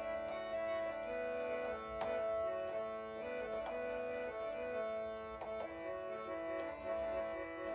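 Instrumental break in the backing music of a Nepali song, with no singing: held chords under a stepping melody, with a few drum strikes.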